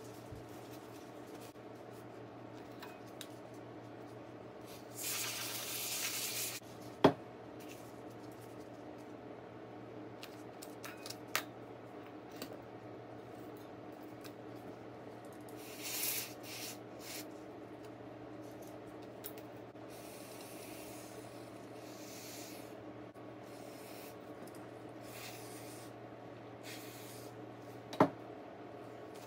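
Bench work on a cordless impact driver being serviced: a short aerosol spray hiss about five seconds in, with sharp knocks of small parts or tools about seven seconds in and again near the end, over a steady low hum. Softer hissing and rubbing comes in between.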